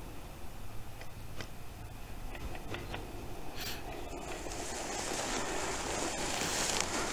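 Outdoor ambience with a low wind rumble on the microphone, then from about four seconds in a louder, steady rustling hiss of tall dry grass and clothing brushing past as someone walks through the grass.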